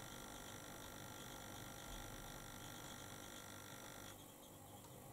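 Faint steady electrical hum over quiet room tone; the hiss above it drops abruptly about four seconds in.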